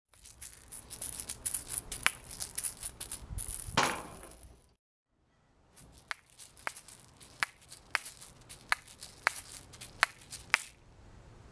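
Asalato shaker balls rattling as they swing, their shells clacking sharply against each other. After a short gap about five seconds in, single sharp clacks come evenly, about one every two-thirds of a second.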